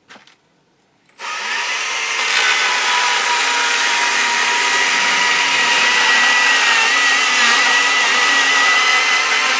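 Stihl MSA 120 C battery chainsaw starting about a second in and running steadily, its electric motor and chain giving a high whine as it cuts through a board.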